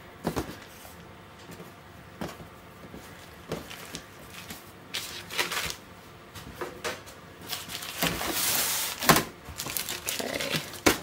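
Baking paper crinkling and rustling as hands shape and tuck a plaited dough on a baking tray, with scattered soft taps and clicks. The loudest, longest crinkle comes about eight to nine seconds in.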